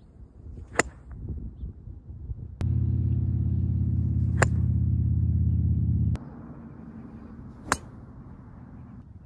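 Three sharp cracks of a golf iron striking balls, roughly three seconds apart. A loud steady low rumble runs under the middle strike and stops abruptly about six seconds in.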